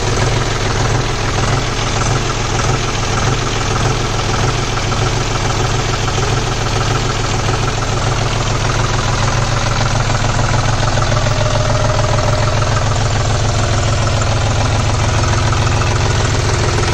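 John Deere 5050D tractor's three-cylinder, 2900 cc non-turbo diesel engine idling steadily just after starting, with a rapid, even beat of firing pulses.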